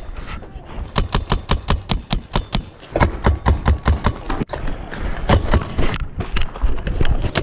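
Paintball markers firing in rapid bursts of sharp shots, several a second, with short pauses between the bursts.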